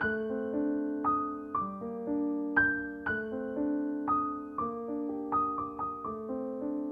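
Background music: a gentle melody on piano or electric piano, single notes struck about twice a second, each ringing and fading.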